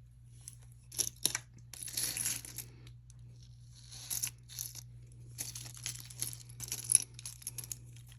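Small metal jewelry pieces clinking and rattling as they are picked up and set down, in a run of light irregular clicks with the sharpest clink near seven seconds, over a faint steady low hum.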